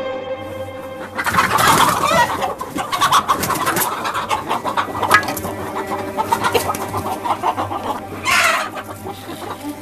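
A flock of hens clucking and calling, loudest about a second in and again near the end.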